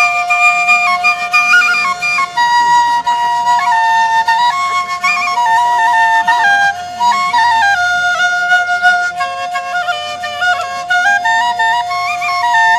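Rajasthani double flute played with circular breathing: one pipe holds a steady, unbroken drone while the other plays a melody that steps up and down above it.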